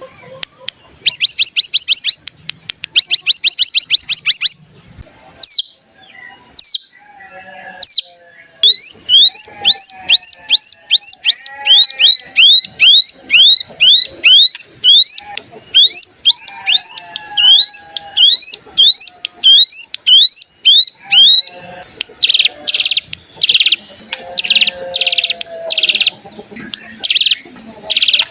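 Hill prinia (ciblek gunung) song. Short bursts of a fast, high buzzing trill give way to a long run of quick slurred notes, about two or three a second, and from about 22 seconds in there are loud buzzy trill bursts again. A thin, steady high tone runs underneath.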